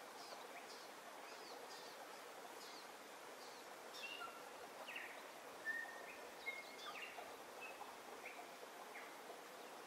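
Faint birdsong: many short chirps, quick falling notes and brief whistles from several birds, over a steady background noise.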